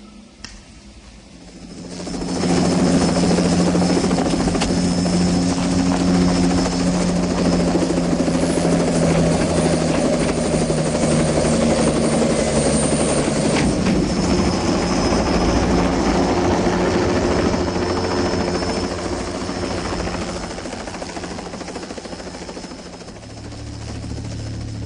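Small helicopter with its rotor blades chopping rapidly and a high steady whine, loud from about two seconds in, then fading away near the end as it flies off.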